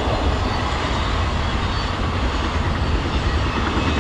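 Long CSX intermodal freight train of flatcars carrying highway trailers rolling past: a steady noise of wheels on rail.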